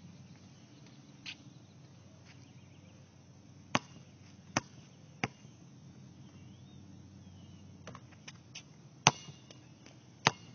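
A basketball bouncing on a hard court: three bounces a little under a second apart, each softer than the last, then after a pause a few more scattered bounces, the loudest about nine seconds in.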